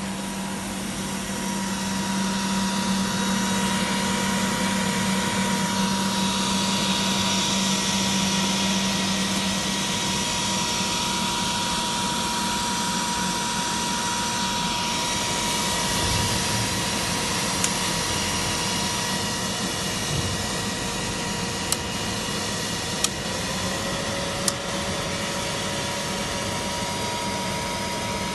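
Steady whirring of running electrical equipment, with a constant high whine and a low hum that fades about a third of the way in. A few sharp clicks come in the second half.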